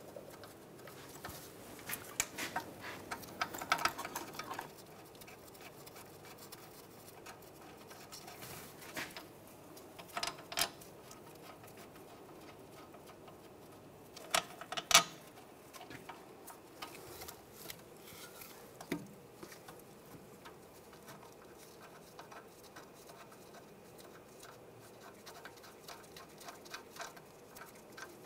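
Scattered light metal clicks and scraping as the wheel hub's mounting bolts are fed through the rusty knuckle and started by hand, with the loudest clink about halfway through.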